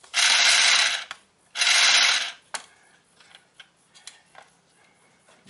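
A small electric motor driving a geared pusher mechanism in a Nerf blaster, run in two short bursts just under a second each with a rattling, ratchet-like gear noise, followed by a sharp click and a few light clicks of the mechanism.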